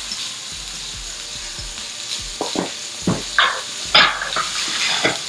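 Salmon fillet and sliced zucchini, squash and red peppers sizzling in hot oil in a frying pan. Several short knocks of a cooking utensil against the pan come between about two and a half and five seconds in.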